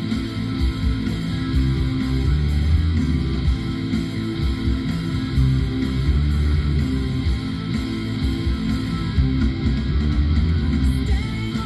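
Rock music: an instrumental passage of electric guitar and bass guitar over a steady beat.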